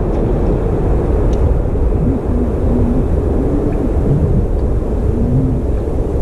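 Wind buffeting the microphone of a GoPro mounted on an open boat, a steady low rumble.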